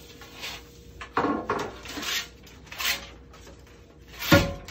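Tape and its paper backing being peeled and torn off a metal sliding-door track in several short rips, then one sharp knock as the metal track bumps, near the end.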